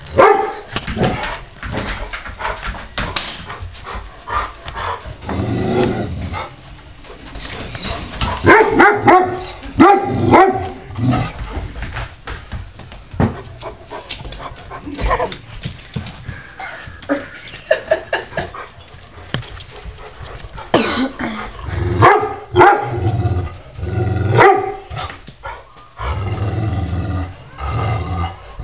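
Large black dog barking repeatedly at a cat, in clusters of sharp barks, heaviest around a third of the way in and again past two-thirds.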